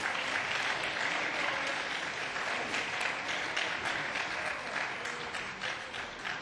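Applause from many legislators seated in a large parliamentary chamber: dense, steady clapping that eases slightly near the end, greeting the close of a speech.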